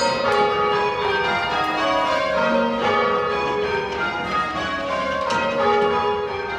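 Church tower bells rung in rounds by a band of bell ringers pulling ropes: a steady succession of bell strikes, each note ringing on and overlapping the next.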